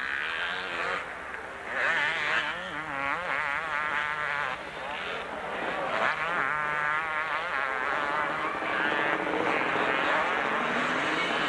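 Two-stroke motocross bikes racing, their engines buzzing and revving up and down over and over as the riders work the throttle and shift, with more than one bike heard at once.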